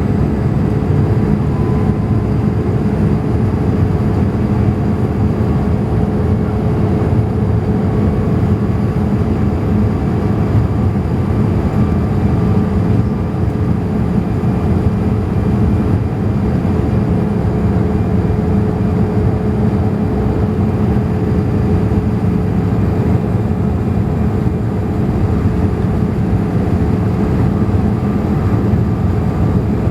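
Boeing 787 cabin noise on approach: a steady rumble of engines and airflow with a steady droning tone over it, which the uploader takes for a hydraulic noise set off by the deployed flaps.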